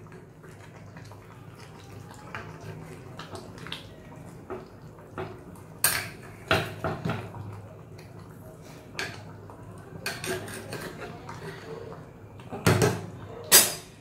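Metal spoon stirring and scraping chicken and poppy-seed paste in a pressure cooker, with scattered clinks and knocks of metal on metal. The loudest knocks come about six to seven seconds in and again near the end.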